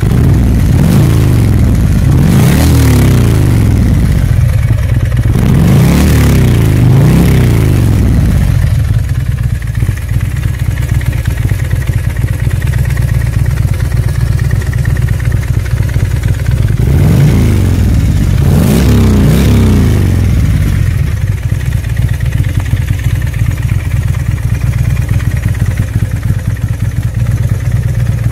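Confederate G2 P51 Combat Fighter's big V-twin engine idling, with the throttle blipped in quick pairs three times: twice near the start, twice about six seconds in, and twice around eighteen seconds in, each rev rising and falling back to idle.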